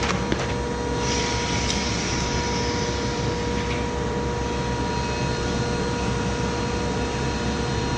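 Rosback 880 single-clamp perfect binder running: a steady machine hum with a constant whine, and a couple of light clicks right at the start.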